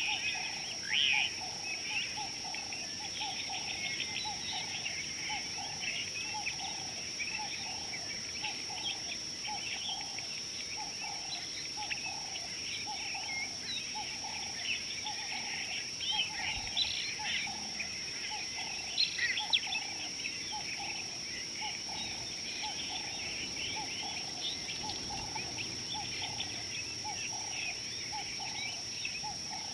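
Many wild birds chirping and twittering continuously, over a lower call repeated about twice a second and a steady high-pitched whine.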